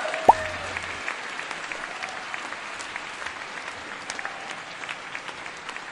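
Applause sound effect: many hands clapping, fading slowly. A short rising tone sounds about a third of a second in.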